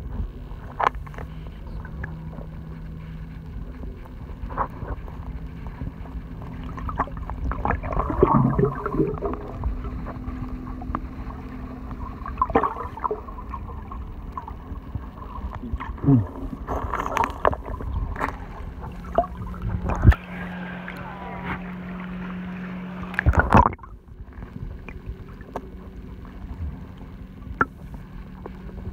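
Muffled underwater sound picked up by a submerged camera: a steady low hum, with scattered knocks and clicks, the loudest about 20 and 23 seconds in, and a few short gurgles.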